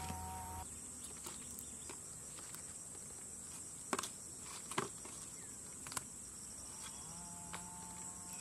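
Insects chirring steadily in a high, even band, broken by a few sharp clicks or knocks. A faint steady tone comes in near the end.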